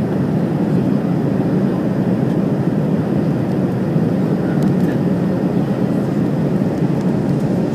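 Steady cabin noise of a jet airliner in flight, heard from inside the cabin: an even rushing drone of engines and airflow, strongest in the low range, with no breaks or changes.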